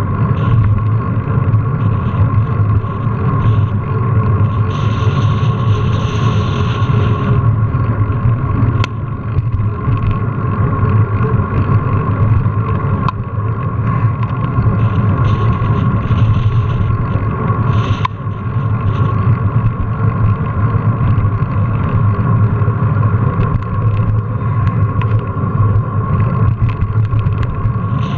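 Steady rumble of a mountain bike rolling over pavement, picked up by a GoPro riding along: tyre and wind noise with a low drone that never lets up.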